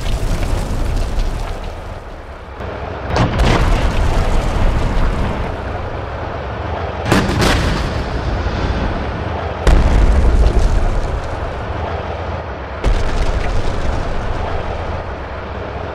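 Heavy blasts from a 125 mm tank gun firing high-explosive rounds and the shells bursting against concrete buildings: several sudden deep booms, two of them close together near the middle, each followed by a long rumble.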